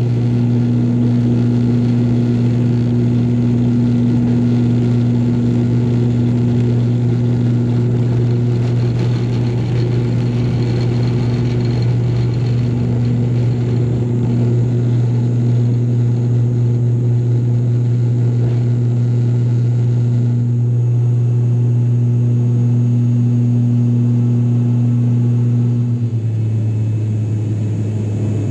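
ATR 42 turboprop engine and propeller, heard from a cabin seat beside it: a loud, steady drone at takeoff power through the takeoff run and climb. Near the end the drone drops slightly in pitch.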